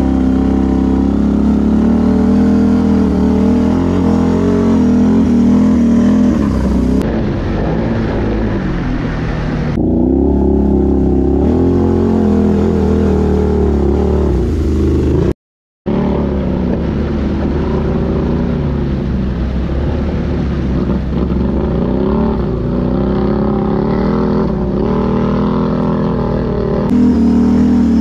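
Can-Am ATV engine running under load, its revs rising and falling as it works along a flooded, muddy trail. The sound cuts out for a moment about halfway through.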